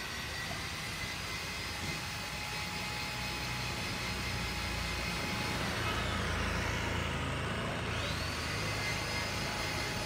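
Road traffic on a street. A motor vehicle passes, getting louder and dropping in pitch about six to eight seconds in.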